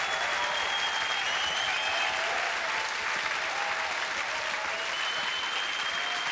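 Studio audience clapping steadily, with a few voices calling out.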